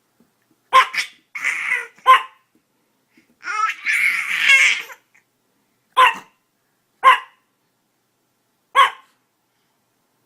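A small dog barking in single sharp yaps, about five of them spaced one to two seconds apart, with bursts of laughter between the first few barks.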